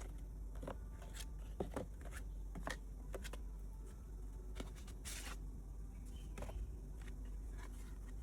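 Packaging being handled and opened by hand: scattered light clicks and rustles, with a brief scratchy rip about five seconds in.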